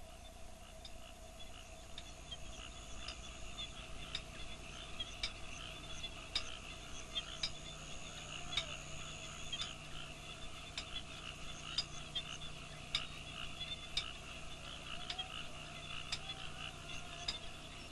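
Chorus of frogs calling: a steady trilling with sharp clicking calls about once a second.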